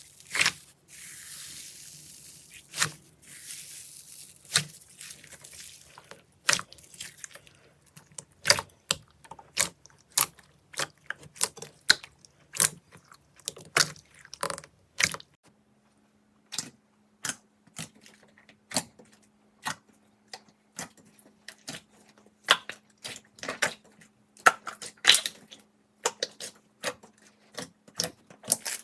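Slime being squeezed and poked by hand, making a string of sharp clicks and pops, a few each second. A hiss runs under the first few seconds.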